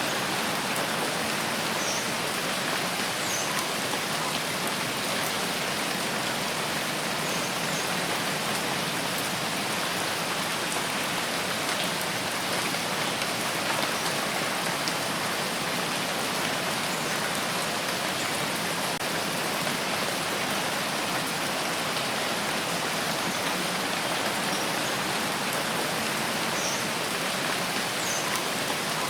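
Steady rain falling, an even hiss of drops on surfaces, with a few faint high chirps now and then.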